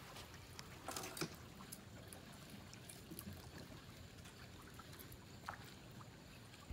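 Faint water lapping and trickling, with a few soft ticks about a second in and again near the end.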